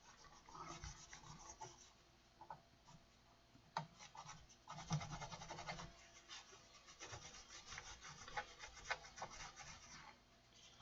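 Faint, irregular rubbing and scratching strokes as the front panel of a Behringer EP2500 power amplifier is scrubbed clean by hand, with short pauses between strokes.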